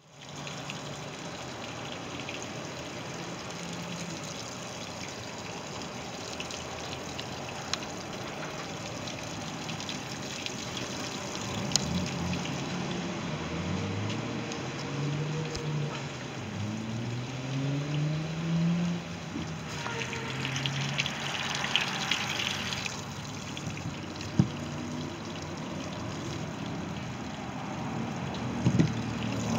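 Boat's OMC Cobra stern-drive engine running, with water splashing and trickling onto pavement. The engine's pitch rises and falls several times about halfway through.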